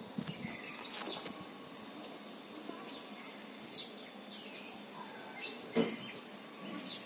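Outdoor ambience with small birds chirping now and then, short high chirps scattered through. A few sharp knocks stand out, the loudest about six seconds in.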